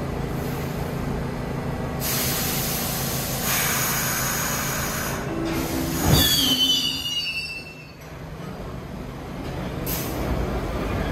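New York City subway train on the 1 line rolling past on the express track, its steel wheels running on the rails. About six seconds in there is a loud clank, then wheel squeal sliding down in pitch before the noise briefly dies away.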